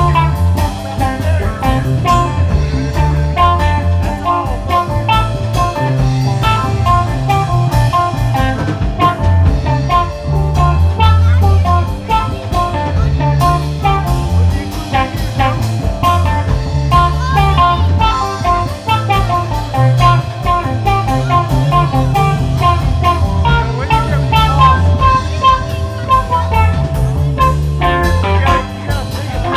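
Blues music with electric guitar and drums, a steady beat throughout.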